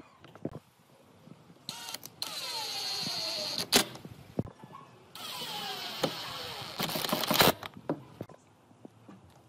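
A handheld power tool runs twice, about two seconds each time, with a steady high whine and a tone that falls as it slows under load. Each run ends with a sharp click, and a few light knocks come in between.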